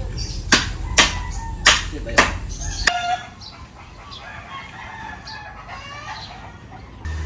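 Five sharp knocks in the first three seconds, like hammering or chopping. In the second half a rooster crows.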